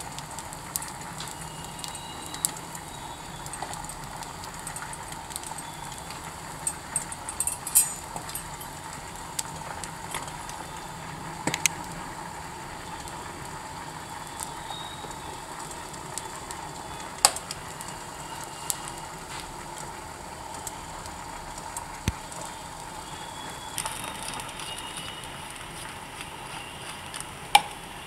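Bread slices frying in ghee on a hot pan: a steady sizzle with scattered sharp pops and clicks.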